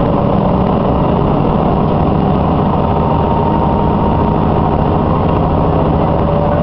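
Diesel railcar running along the line, heard from inside the passenger cabin: a steady, loud drone of engine and running gear, with a faint held whine.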